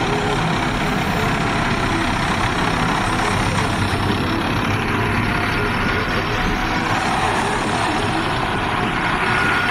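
Column of tanks driving past on a cobbled road: heavy engines running and steel tracks rattling, a loud, steady, unbroken noise. A faint high whine comes in near the end.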